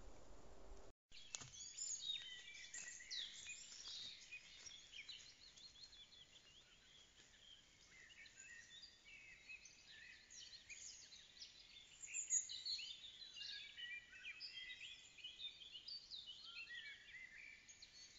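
Many songbirds singing and chirping at once, a dense overlapping mix of short high calls and trills, picked up by a trail camera's microphone. The birdsong begins after a brief break about a second in.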